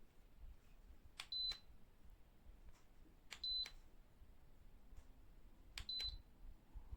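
Three short high electronic beeps about two seconds apart, each set between faint clicks: the Pelonis pedestal fan's control beeping as its buttons or remote are pressed.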